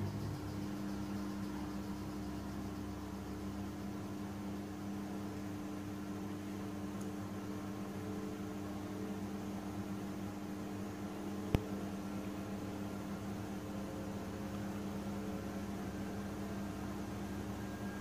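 Washing machine's drain pump running with a steady electric hum while the drum stands still. A single sharp click about halfway through.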